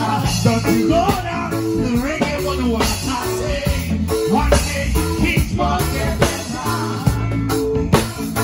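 Live band playing an upbeat ska-reggae groove, with bass, drums and guitar.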